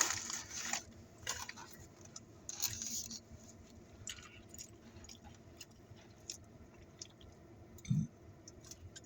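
A person chewing and biting into fast food close to the microphone, with a loud burst of mouth noise at the start, a few shorter ones in the next few seconds and small clicks between.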